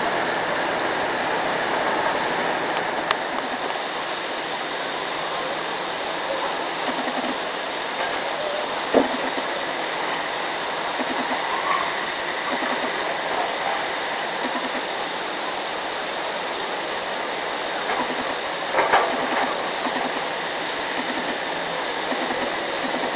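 Hydraulic excavator working at a distance: a steady mechanical rumble and hiss, with a few short knocks, one about nine seconds in and a cluster a little later.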